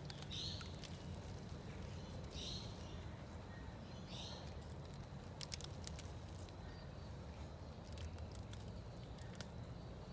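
Succulent leaves snapped off the stem by hand, giving scattered crisp clicks. Three short high chirps come about two seconds apart in the first half, over a low steady rumble.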